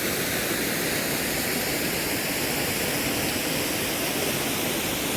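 Steady rushing of a waterfall, water falling fast down a mountainside.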